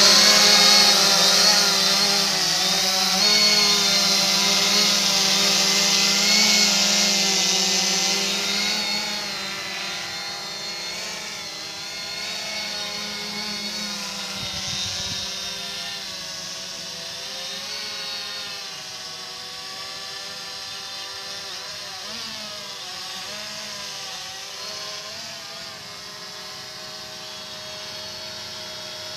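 UP Air UPair One quadcopter's four motors and propellers buzzing in flight: a steady whine of several tones that waver slightly in pitch. Loud at first, it grows fainter from about nine seconds in as the drone climbs away.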